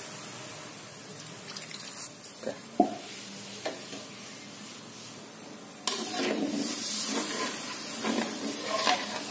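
Spice paste and a little water sizzling in a metal wok, with a few light clicks of a metal spatula. About six seconds in, the spatula starts scraping and stirring the sauce against the wok.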